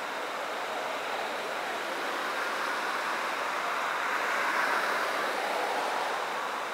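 Steady traffic noise that swells about four to five seconds in as a vehicle passes, then fades.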